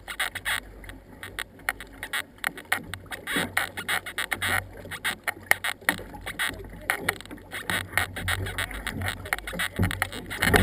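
Paddle splashes and water slapping against a canoe hull, irregular small splashes and clicks over a low steady rumble, with a louder knock near the end.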